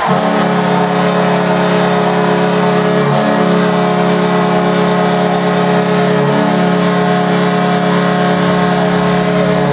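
Arena goal horn sounding one long, loud, steady blast, the signal of a home-team goal.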